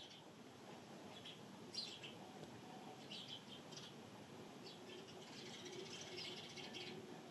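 Sparrows chirping in short, scattered bursts over the faint steady hiss of pouring rain.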